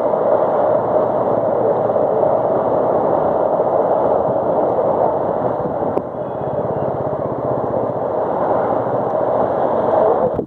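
Steady, loud noise of heavy rain on a flooded street, with traffic driving through the standing water. About six seconds in there is a small click, and after it the noise is a little quieter.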